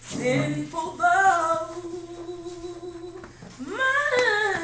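A woman singing a gospel song solo and unaccompanied. She holds a long steady note, then slides up into a higher held note about three and a half seconds in.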